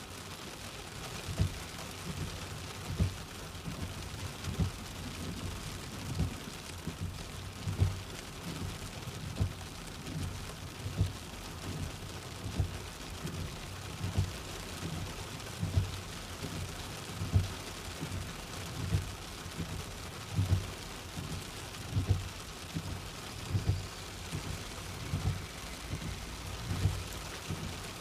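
Car windscreen wipers running, a low thump about every second and a half as each sweep ends, over a steady hiss.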